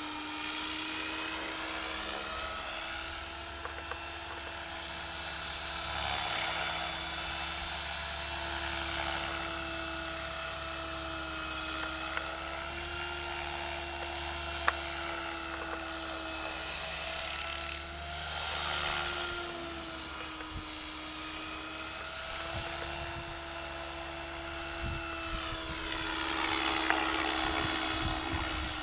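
Align T-Rex 500 electric RC helicopter in flight: the brushless motor and gearing give a high whine over the rotor's hum, its pitch wavering slightly and its loudness swelling and fading as the helicopter moves nearer and farther. A single short click about halfway through.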